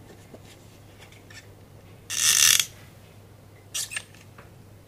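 A brief rasping rattle about two seconds in, then a shorter one near the end: handling sounds from the sequined, stone-studded trim being worked by hand.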